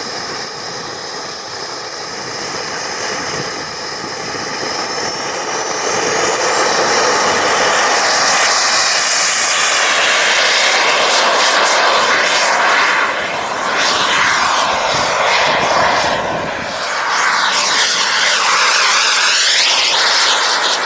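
Small turbine engine of a radio-controlled model jet spooling up for takeoff: a high whine that rises steeply in pitch about four to seven seconds in, then a steady jet rush as the model takes off, sweeping as it passes low.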